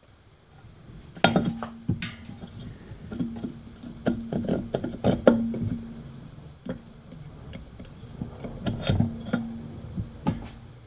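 Metal clinks, taps and knocks as the cover plate of an MXUS direct-drive e-bike hub motor is handled and worked into place on the rotor, in clusters with pauses between.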